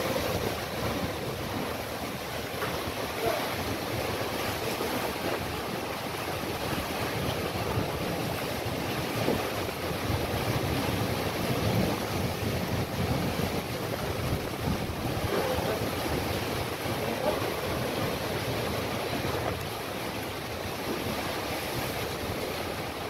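Strong wind blowing across the microphone over a choppy sea, with waves washing against the harbour quay and the moored boat's hull.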